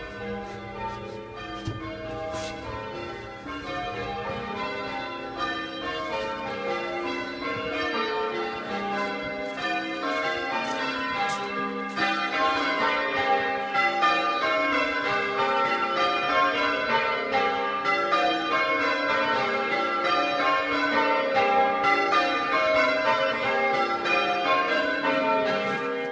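Church bells being rung in changes: the closing stretch of a quarter peal, a steady run of overlapping bell strokes in even rhythm that grows louder about halfway through.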